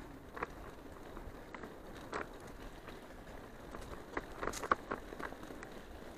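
Bicycle rolling fast along a dirt forest track behind a running dog: a steady tyre-and-trail rumble with scattered clicks and rattles, more of them a little past four seconds in.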